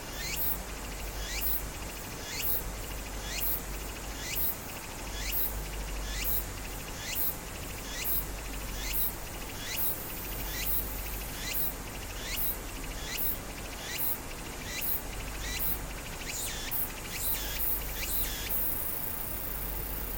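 A series of short, high chirps, each falling sharply in pitch, repeating about once a second and coming closer together near the end, over a faint low hum.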